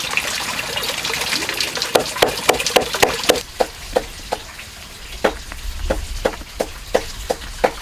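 A cleaver chops a banana stem on a wooden board in rapid, regular knocks, about two to three a second. A steady hiss runs under the first few seconds, then drops out, leaving the knocks plain.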